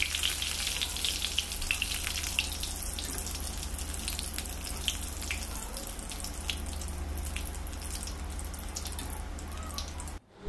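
Curry leaves frying in hot oil in a steel mesh strainer: a steady sizzle with scattered crackles, thinning out as the leaves crisp.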